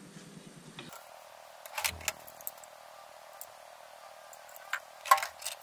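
Small handling noises of hands working electrical wiring on a workbench: a short cluster of clicks with a soft knock about two seconds in, and a louder cluster of clicks and rustles near the end.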